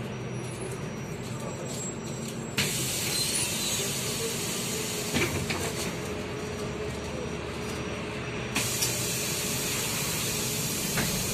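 Inside a MAZ-203 city bus, a loud steady hiss of air starts suddenly with a thump about two and a half seconds in, over the bus's low running hum. A second thump about six seconds later renews the hiss, which carries on to the end.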